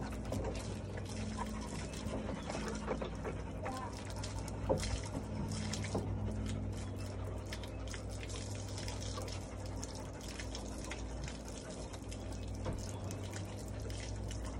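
Garden hose spraying water onto a dog's coat and splashing on wet concrete, with many small irregular splashes, over a steady low hum.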